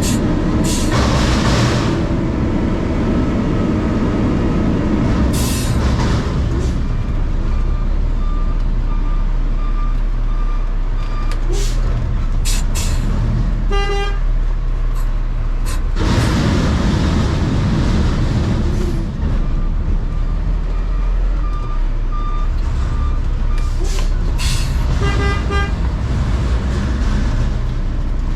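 Garbage truck's diesel engine running with a steady rumble, heard from the cab. A warning alarm beeps about twice a second for a few seconds, twice. Short toots and sharp air hisses break in here and there.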